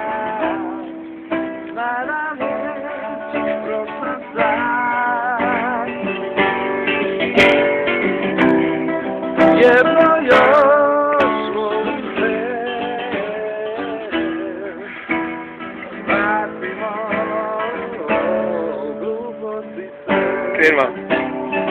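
Music: a guitar with long held notes and a wavering melody line over it.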